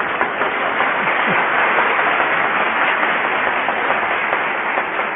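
Studio audience applauding, a steady dense clatter of many hands clapping.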